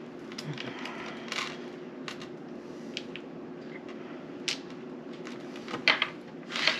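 Scattered light clicks and taps of board-game pieces being handled and set down, the sharpest two near the end, over a low steady hum.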